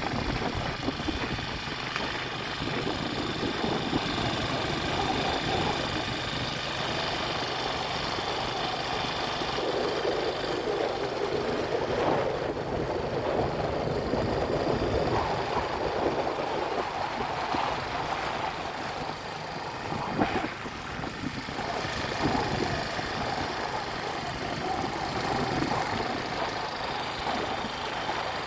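A dinghy's small outboard motor running steadily while under way across the water.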